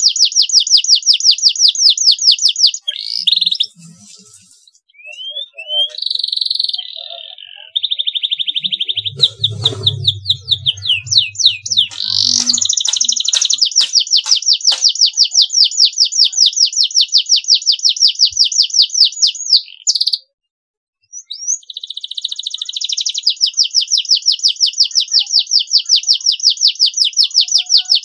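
Domestic canary singing: long, very fast trills of repeated high notes, broken by short pauses, a buzzy held note and a few single chirps. A brief low rumble comes in about ten seconds in.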